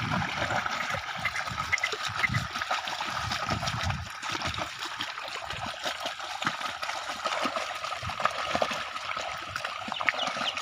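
Water sloshing and trickling steadily, with irregular low sloshes, typical of bullocks dragging a plough through a wet, flooded field.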